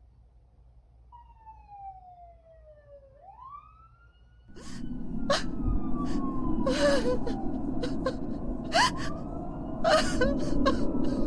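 Siren wailing, its pitch sliding down, then up and slowly down again in repeated swoops. From about four and a half seconds in, a loud rush of noise full of sharp crackling clicks comes in under it.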